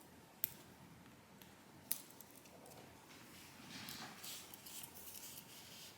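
Two sharp clicks, then the small pen of a Swiss Army Manager keychain knife scratching across paper for about two and a half seconds, starting about three seconds in.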